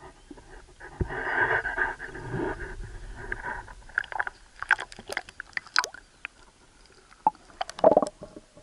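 Handling and water noise from a camera being put into a river: a knock, then a couple of seconds of splashing and sloshing, followed by scattered sharp clicks and a heavy thump near the end as the camera goes under.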